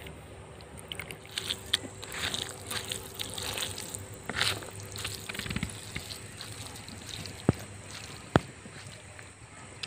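Fish curry being ladled over rice and mixed in by hand: wet squelching and dripping with many small crackly clicks. Two sharp clicks about a second apart come later on.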